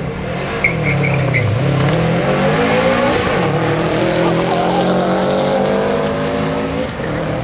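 Two drag cars launching from the start line and accelerating hard down the strip, the engine pitch climbing steadily for several seconds.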